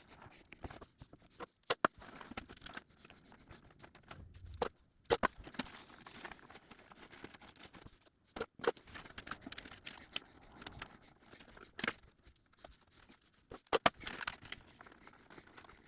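Electrical tape being pulled off its roll and wrapped around wires, with handling noise and a scattering of sharp clicks.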